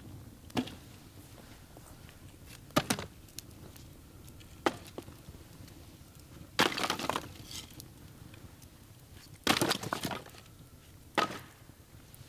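Dry sticks and branches cracking and breaking as wood is handled and laid on a small fire: a few single sharp cracks, then two longer breaking, rustling sounds, the louder about two-thirds of the way in.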